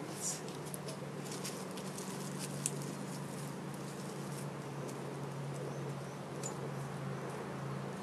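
Small wood fire crackling in a compact rocket stove, with scattered sharp snaps and ticks, over a steady low hum.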